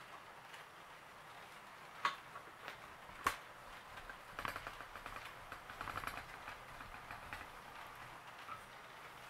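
HO-scale model train running on the layout's track, its wheels clicking over rail joints and turnouts: two sharp single clicks about two and three seconds in, then a run of quick small clicks a little later.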